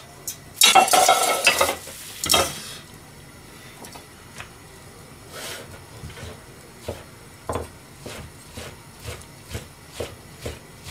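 A kitchen knife chopping on a cutting board in steady sharp taps, about two a second, coming a little faster toward the end. A short loud burst of noise comes first, about a second in.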